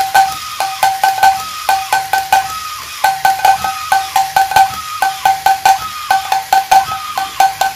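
1960s Alps Teddy the Drummer toy bear beating the small drum on its chest: rapid, evenly spaced ringing strikes, several a second, in short runs broken by brief pauses.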